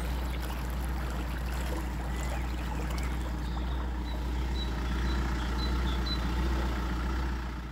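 Narrowboat engine running steadily at low cruising speed, a continuous low drone.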